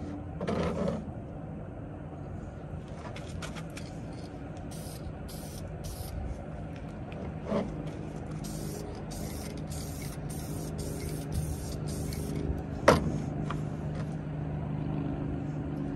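Aerosol spray-paint can hissing in repeated short bursts as a trim piece is painted black, over a steady low engine hum. One sharp knock comes near the end.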